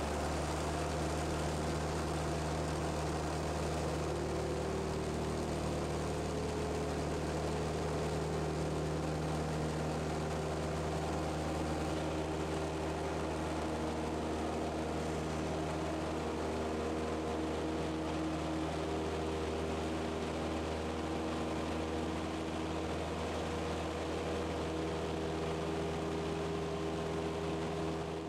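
Cessna 172's four-cylinder Lycoming engine and propeller running steadily at takeoff power, heard from inside the cabin, during the takeoff and climb-out.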